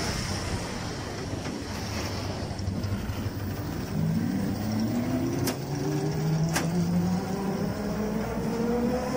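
Electric auto-rickshaw with a 48 V 800 W BLDC motor and shaft drive, driving with the cabin rumbling and rattling over the road. About four seconds in, a motor whine sets in and rises steadily in pitch as it gathers speed. Two sharp knocks come soon after.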